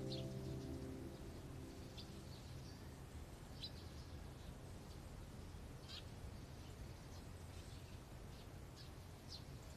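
Soft background music fading out within the first second or two, then faint quiet ambience with sparse short, high bird chirps every second or two.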